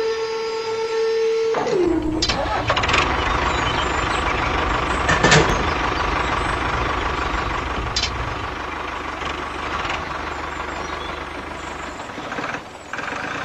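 A held tone slides down in pitch, then a tractor engine runs steadily with a low rumble from about two seconds in, easing off near the end.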